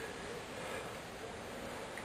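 Faint steady background hiss with no distinct sound events.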